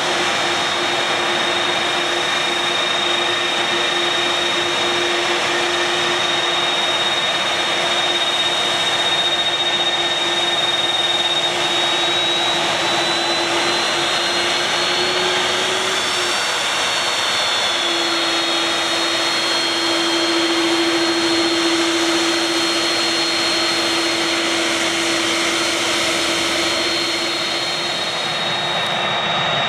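Airbus A300-600R's turbofan engines at taxi power: a steady jet rush with a high whine and a lower hum. The whine shifts up in pitch about halfway through.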